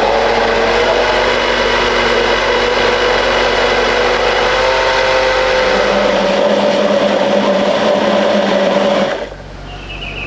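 Small electric motor running at a steady speed, switched off suddenly about nine seconds in.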